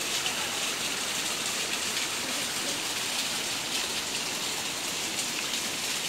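Steady hiss of falling water splashing, from a thin waterfall trickling down a rock face onto rocks and leaves.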